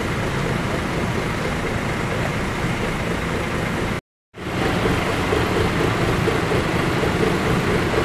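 Tour bus diesel engine idling steadily. The sound drops out for a moment about four seconds in at an edit, then carries on slightly louder.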